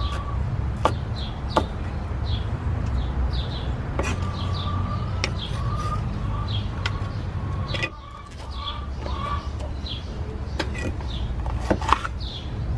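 A cleaver knocking on a wooden cutting board at irregular intervals while green peppers are chopped. Birds chirp repeatedly in the background, with short falling chirps over a steady low rumble.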